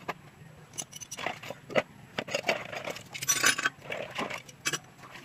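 Metal hand tools clinking and rattling against one another as they are picked up and handled, a series of short sharp clinks with a denser jangle a little past three seconds in.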